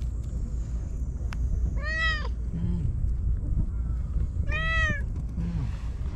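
A domestic cat meowing twice, about two and a half seconds apart, each a short call that rises and then falls in pitch. A steady low rumble runs underneath.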